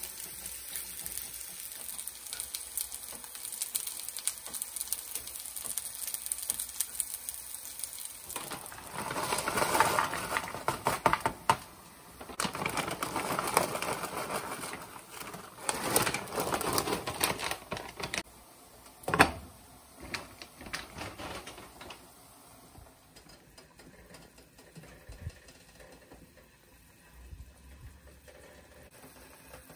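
Rapid tapping and clattering of kitchen work, loudest in a long run from about a third of the way in, with one sharp knock near the middle, then sparse quiet clicks.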